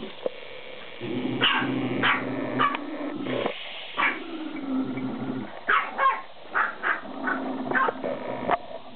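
Small dog growling from about a second in, broken by about a dozen short, sharp yaps that come faster in the second half.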